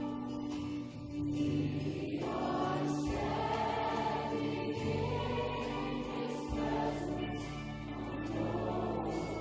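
Choir singing a worship song over instrumental accompaniment, with long held notes and chords that change every second or two.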